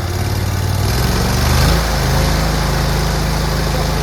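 Nuoman mini skid steer's engine running just after starting: its speed rises over the first two seconds, then settles into a steady run.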